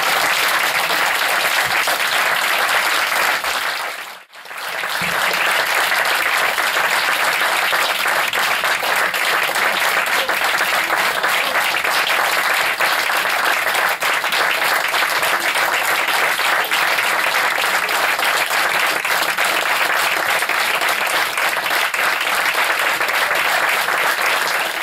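Audience applauding steadily, with a brief break about four seconds in before the clapping picks up again.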